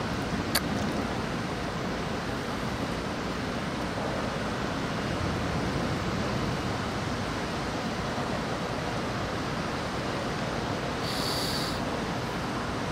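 Steady rushing noise of wind and rain, with a single sharp click about half a second in and a brief high hiss near the end.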